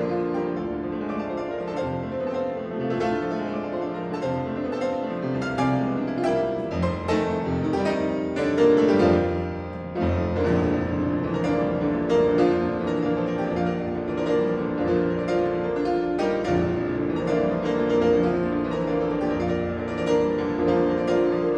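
Solo piano playing a classical piece with dense, held chords. It builds to its loudest about eight to nine seconds in, eases off, then starts a new phrase with a strong chord at about ten seconds.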